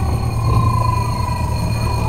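Steady low rumble of a small tourist road train running along. A single high tone holds for about a second and a half, starting about half a second in.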